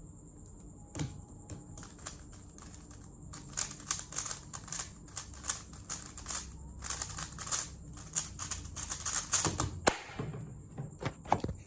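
Speed cube being turned rapidly during a solve: one sharp click about a second in, then a dense run of quick plastic clicks and clacks for most of the rest.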